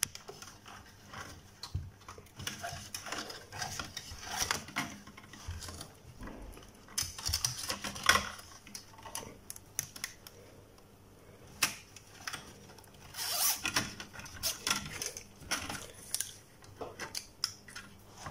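Nylon cable tie being ratcheted tight, its teeth clicking through the head in several short bursts of rapid clicks, mixed with rustling and light knocks from hands working among the wiring.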